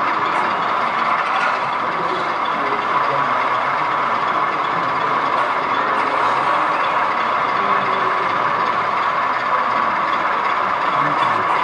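Steady diesel engine sound from a sound-fitted model BR Class 08 shunter, played through its small loudspeaker as the locomotive slowly hauls tank wagons; the sound is thin, with no deep bass.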